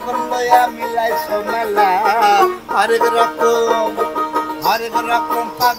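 Music: a Bengali folk song with plucked strings over a steady drone and a singing voice.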